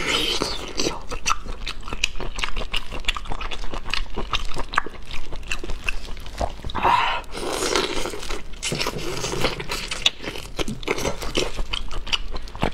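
Close-miked biting and chewing of raw marinated whole prawns: the shells crunch and crackle in a dense run of small clicks, with a fuller, louder mouth sound about seven seconds in.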